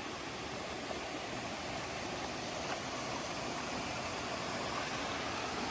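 Steady rush of a waterfall cascade at a gentle dry-season flow, the water not rushing hard; it grows slightly louder toward the end.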